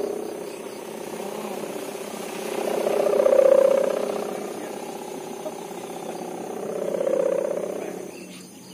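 Sowangan hummer on a flying gapangan kite droning. Its drone swells and fades roughly every three and a half to four seconds, and eases off near the end.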